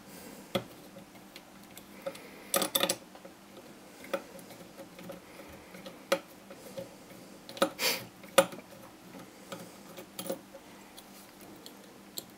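Screwdriver and small metal extruder parts clicking and clinking by hand, as sharp irregular ticks, some in quick clusters, while the 3D printer extruder is unscrewed and taken apart.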